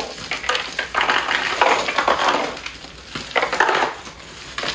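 Ice cubes shaken out of a plastic bag into a cooler of packed food: the bag crinkling and the cubes clattering, in about three bursts, with a sharp click near the end.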